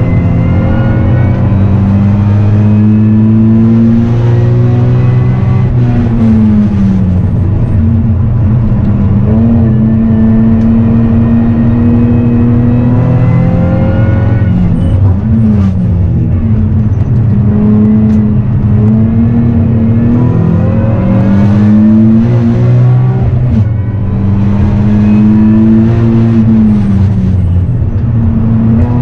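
Nissan 370Z's V6 engine run hard on a race track, heard from inside the cabin: its pitch climbs steadily under throttle, then falls steeply three times as the car brakes and shifts down for corners, before climbing again.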